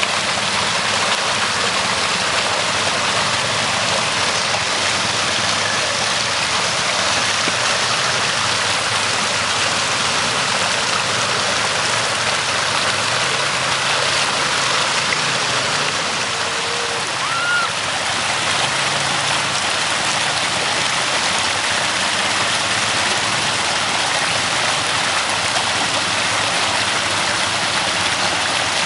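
Creek rapids rushing steadily over rocks, with ATV engines running faintly underneath as the machines cross the water.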